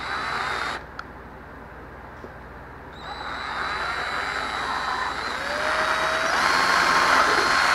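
Cordless drill with an 11/64 bit drilling through thin plastic. A short burst stops under a second in, then a second run of about five seconds gets steadily louder, its whine climbing in pitch partway through, and cuts off sharply at the end.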